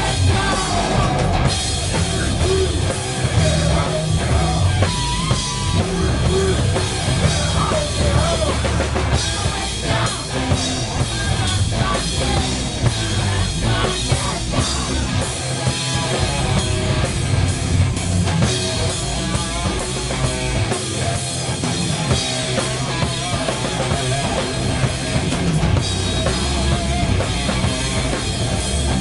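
Stoner/sludge metal band playing live: distorted electric guitars and bass guitar through amplifiers over a drum kit, running a heavy riff without a break.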